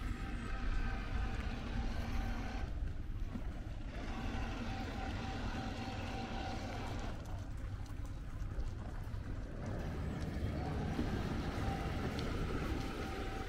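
Motorboat engine running steadily, with a low rumble and a faint hum that drops away twice for a moment.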